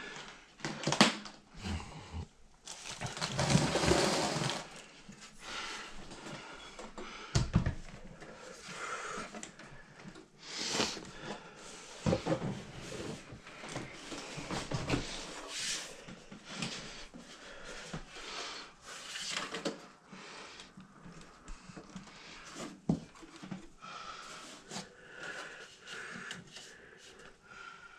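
Scattered handling noises on a desktop computer case: short clicks and knocks with a few patches of rustling, the longest a few seconds in.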